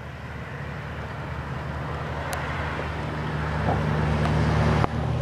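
A car approaching slowly across a parking lot, its low steady hum growing louder, with a sharp knock near the end.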